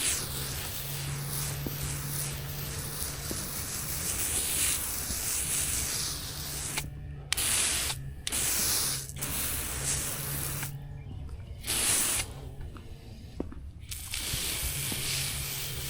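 Liquid spraying hard from a soft-wash spray nozzle, a steady hiss over a low hum, cut off briefly a few times in the second half as the trigger is released.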